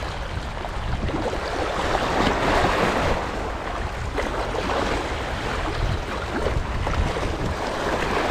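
Wind noise on the microphone over the steady wash of sea water.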